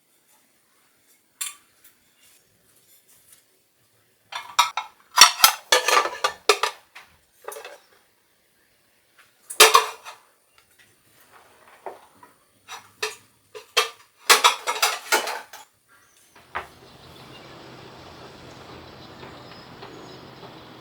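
Stainless steel utensils and cutlery clinking and clattering as they are handled, in scattered bursts with pauses between. About three-quarters of the way through, a steady hiss with a faint low hum begins.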